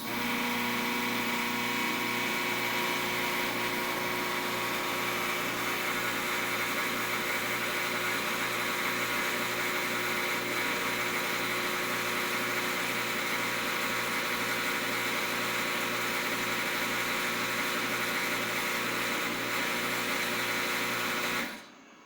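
Electric suction pump motor of a gastric aspirator running steadily, starting abruptly and cutting off suddenly near the end.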